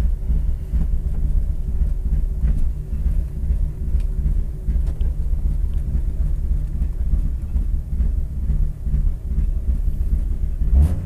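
Rally car's engine idling steadily, heard from inside the cabin, with a sudden thump near the end.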